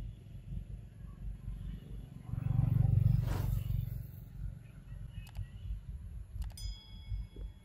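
Outdoor ambience: a steady low rumble that swells into a louder rumble with a short whoosh about two and a half seconds in. Near the end come a couple of sharp clicks and a brief ringing tone.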